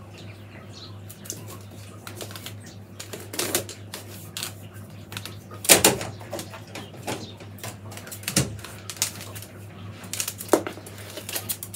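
Willow rods clicking, creaking and rustling as they are wound and tucked round a wreath hoop by hand: irregular ticks and knocks, the sharpest about six seconds in and again about eight and a half seconds in, over a low steady hum.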